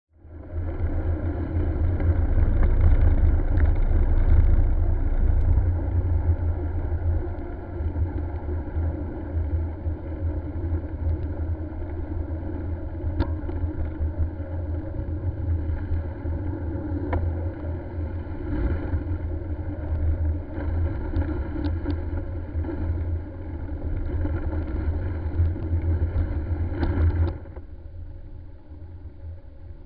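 Low rumbling running noise and wind on a handlebar-mounted camera as a vehicle drives over a snow-covered lane, with a few faint clicks. The rumble drops sharply near the end.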